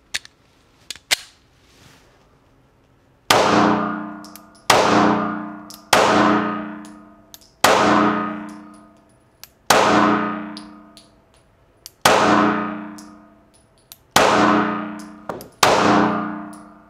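Springfield Armory XD-S 9mm subcompact pistol fired eight times at a slow, aimed pace, one shot every one and a half to two and a half seconds, each shot ringing off the walls of an indoor range. A few light clicks come before the first shot, about three seconds in.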